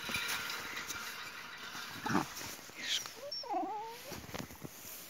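Dogs whining and whimpering as they squabble over a toy through a wire fence, with a short sharp sound about two seconds in and a wavering high whine about three and a half seconds in.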